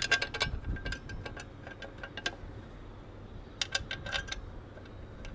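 Small metal parts clicking and clinking as a Z clamp and its bolt are fitted by hand onto a metal motorcycle bash plate, in several short clusters of light taps.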